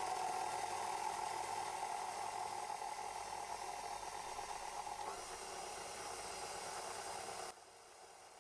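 Stand mixer running with its flat beater turning dry flour: a steady motor whir that cuts off suddenly near the end.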